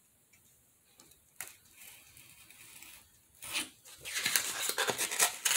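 Hobby knife cutting a piece out of a scrap sheet. A few faint clicks and scrapes come first, then a soft knock, then dense scratchy rasping strokes from about four seconds in.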